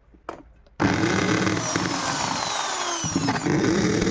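Electric hand drill starts up about a second in and runs steadily with a whining motor, its bit biting into the wall to mark screw-hole positions.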